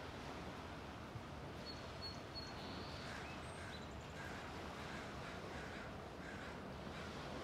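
Steady wash of small waves on the shore, with faint bird calls scattered through and a thin high whistle about two seconds in.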